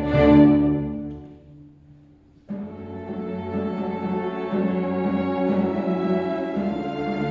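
Youth orchestra with a large string section playing: a loud chord that fades away into a short pause, then the full orchestra comes back in suddenly about two and a half seconds in and plays on, a little louder toward the end.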